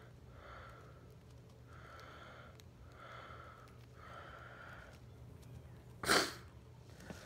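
A person breathing audibly through the nose close to the microphone: four soft, evenly spaced breaths, then a short, much louder sniff about six seconds in.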